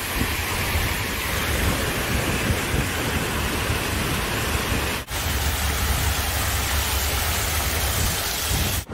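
Fountain water cascading and splashing down stepped stone channels: a steady rushing hiss with a low rumble underneath. It breaks off for an instant about five seconds in.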